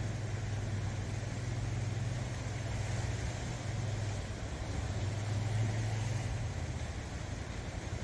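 Sea waves washing over shore rocks, with a steady low engine drone under them that fades out about six and a half seconds in.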